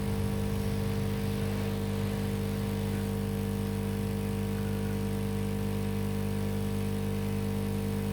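Steady low electrical hum from running bench repair equipment, holding a constant pitch over a faint hiss.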